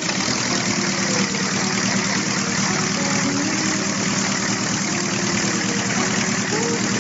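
Engine of a light Wallis autogyro, started by hand-swinging its wooden propeller, catching right at the start and then running steadily with the propeller spinning.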